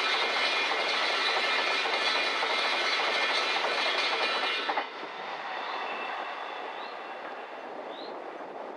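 Freight train box wagons rolling past on the track, loud and steady until the last wagon goes by about halfway through. The noise then drops sharply and fades as the train moves away, with a few short faint chirps near the end.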